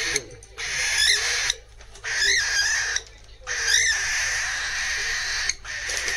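Weaned cockatiel giving chick-like food-begging calls: harsh, raspy bouts broken by short pauses, with a few brief chirps mixed in. It has regressed to baby begging to be fed soaked millet.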